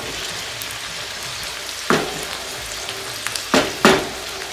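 Diced potatoes sizzling steadily as they fry in hot oil, stirred with three short scraping strokes in the second half.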